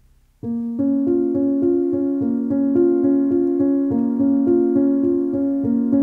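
Background music on a piano-like keyboard, starting about half a second in: evenly spaced notes, about three or four a second, over held lower notes.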